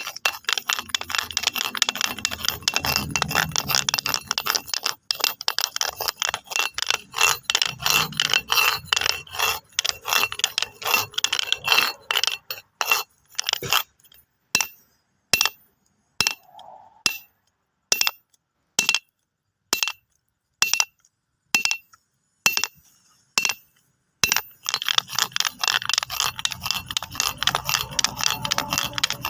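Stones clinking and scraping against one another: a dense clatter of sharp clicks, thinning midway to separate knocks about one or two a second, then a dense clatter again near the end.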